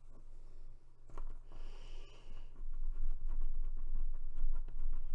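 Small hand-assembly noises: a precision screwdriver turning a tiny screw into a plastic model part, with faint scratching and clicks. From about three seconds in, louder rubbing and bumping of hands on the cloth-covered table, and a breath near the microphone.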